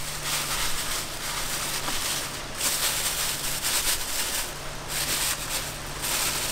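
Plastic bag rustling and crinkling in uneven bursts as it is handled and wrapped over a part in a car's engine bay.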